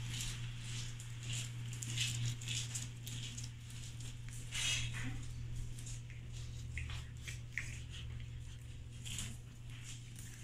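Whippet puppies' claws scrabbling and pattering on a tile floor in scattered, irregular scuffles as they tussle, with a few short squeaks, over a steady low hum.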